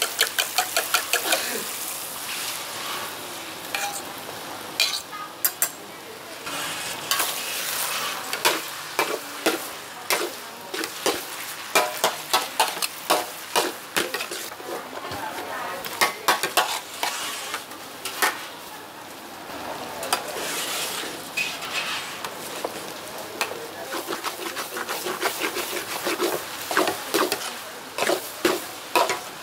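Wide flat noodles and egg sizzling in a steel wok, with two metal spatulas scraping and clacking against the pan in quick, irregular strokes as the noodles are tossed.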